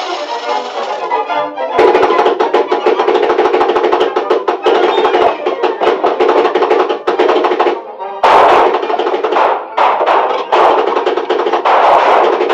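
Busy cartoon-score music packed with quick drum and wood-block hits; it dips briefly just before eight seconds in, then comes back loud.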